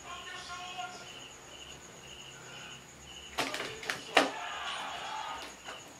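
Cricket chirping in an even rhythm, about two chirps a second, over a steady high whine, with faint voices in the background. A little past the middle come three sharp clicks, the last the loudest.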